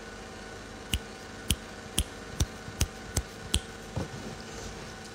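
A run of seven sharp clicks, about two to three a second, coming slightly faster toward the end, followed by one softer knock.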